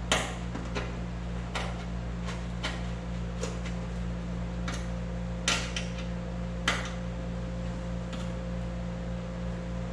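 Irregular metallic clicks and taps of an Allen wrench working hex-head sheet metal screws into the engine tin, the sharpest at the very start and about five and a half and six and a half seconds in, over a steady low hum.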